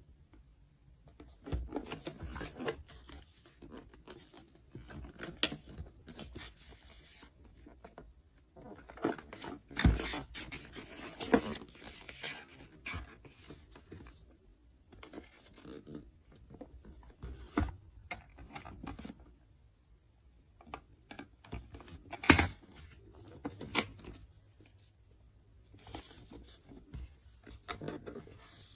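Toy packaging being handled and torn open: irregular bursts of crinkling, tearing and scraping with scattered sharp clicks, the loudest click about 22 seconds in, and short pauses between bursts.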